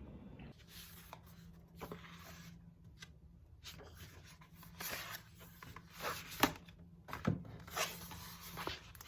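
Close handling sounds of paper and small objects: irregular rustling and scratching with sharp light taps, over a steady low hum.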